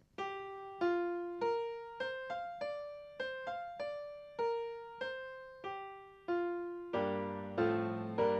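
Keyboard music: a slow melody of single notes, each struck and left to fade, then about seven seconds in fuller chords with a bass line join in.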